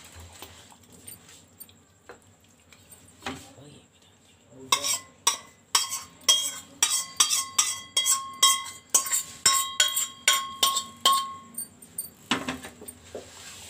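Rapid metallic clinking with ringing as a steel bowl is tapped and scraped empty of its tempered oil, garlic and curry leaves over a glass bowl: a few light clicks, then from about five seconds in a quick run of strikes, about three a second, for some seven seconds.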